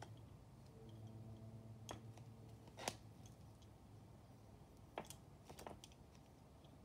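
A few faint, short clicks and ticks, the sharpest about three seconds in, over a low steady hum: pins being pushed through a paper lace pattern into a sawdust-stuffed pillow.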